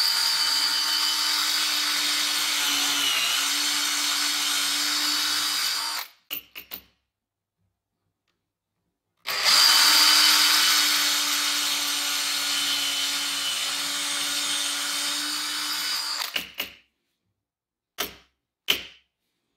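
Makita DDF453 18V cordless drill-driver boring dowel holes into wood: two long runs of steady motor whine, about six and seven seconds long, with a pause between. A few short clicks near the end.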